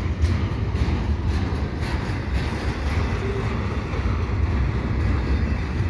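Double-stack intermodal freight train's well cars rolling past close by: a steady rumble of steel wheels on rail, with scattered clicks and clanks.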